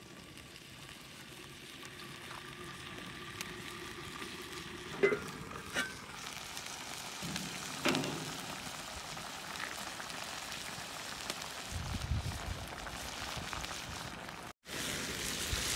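Meat and potato chunks frying in a metal pan over an open wood fire, a steady sizzle that slowly grows louder, with a few sharp knocks about five and eight seconds in.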